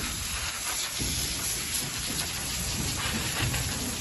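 Garden hose spray nozzle jetting water onto the vinyl floor of an emptied above-ground pool, a steady hiss, rinsing algae off the liner.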